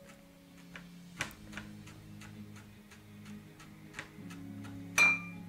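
Chef's knife slicing rolled sage leaves into ribbons on a plastic cutting board: light, regular taps of the blade on the board, about two or three a second. About five seconds in comes one sharper clink with a short ring.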